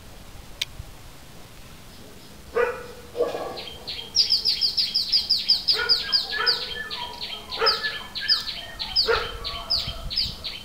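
After a quiet start, dogs begin barking about two and a half seconds in, in short separate bursts. From about four seconds in, a bird calls over them in a fast run of high, falling chirps, about four a second.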